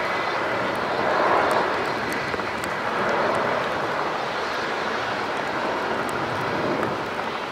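Jet airliner's engines at high power as it rolls down a wet runway, kicking up spray: a steady, continuous rush of jet noise with slight swells.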